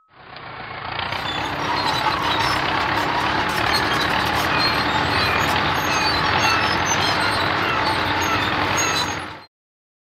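Road roller sound effect: a heavy engine running with a steady rumble and scattered small clicks, fading in over the first second or so and cutting off suddenly near the end.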